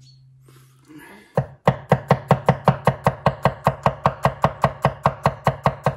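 Large kitchen knife dicing an onion on a wooden chopping board: rapid, even chopping strokes, about six a second, starting about a second and a half in.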